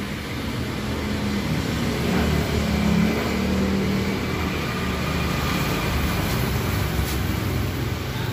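Steady background rumble with a low droning hum that swells a little around three seconds in.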